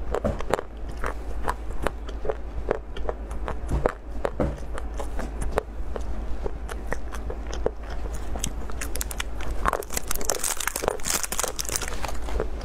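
Close-miked crunchy bites and chewing of a chocolate-covered wafer bar, with many sharp crisp cracks. Near the end, foil candy-bar wrappers crinkle.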